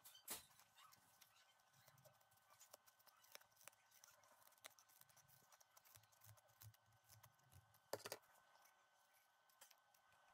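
Scissors snipping through thin cardboard: a run of faint cuts and small ticks, with two sharper clicks, one just after the start and one about eight seconds in.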